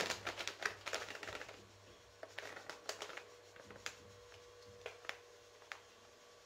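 A plastic packet of idli rava crinkling and crackling as it is handled and opened, in a dense run of crackles at first, then scattered single crackles.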